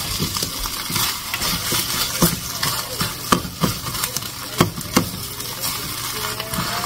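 Eggs sizzling in a ceramic nonstick frying pan while a utensil stirs and scrapes them, with irregular sharp taps of the utensil against the pan.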